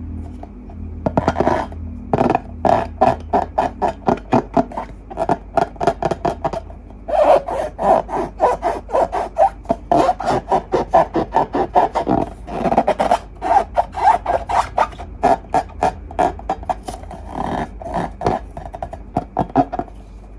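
Slime being handled: a quick, uneven run of short squishing, crackling strokes, a few a second.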